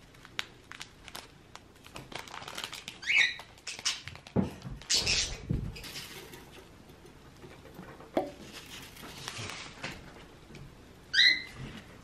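Bird pellets shaken from a packet patter into a tray, with the packet rustling; the loudest stretch comes about five seconds in. A pet parakeet chirps briefly twice, about three seconds in and near the end.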